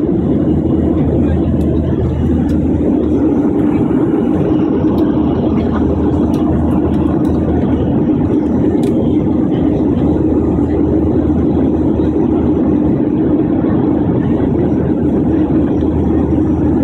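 Steady engine and airflow noise inside a jet airliner's cabin in flight, heard from a window seat over the wing, with a low hum under it.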